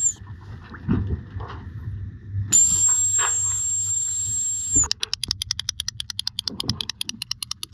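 High-frequency whistle blown in one steady, very high note held for about two seconds, a signal meant to attract bottlenose dolphins. Right after it stops, a fast, even run of sharp clicks begins and keeps going.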